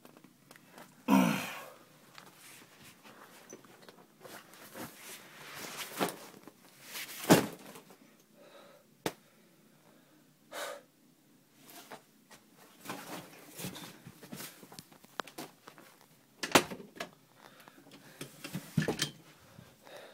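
Handling noise from a handheld phone being moved about in a small room: scattered rustles, clicks and knocks, with louder thumps about a second in, midway through and twice near the end.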